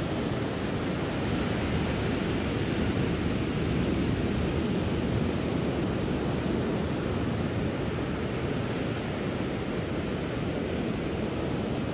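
Ocean surf stirred up by a typhoon, waves breaking in a steady, unbroken wash of noise that is heaviest in the low end.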